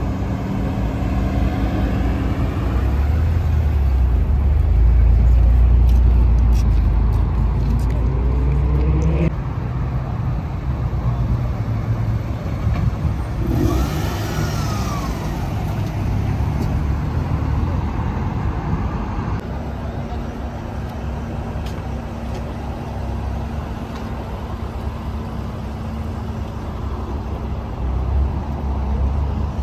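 Modified cars' engines running as they drive slowly by. The loudest engine fills the first nine seconds, its revs rising just before it ends suddenly. Later comes a quieter, steady engine hum.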